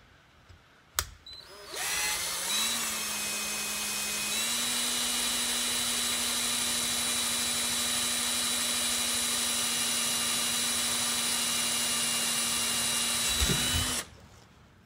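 Handheld power drill boring a hole through a small metal bracket held in a vise, to be tapped for a screw. After a click about a second in, the motor spins up in two steps and runs with a steady whine. A brief knock comes just before it stops abruptly near the end.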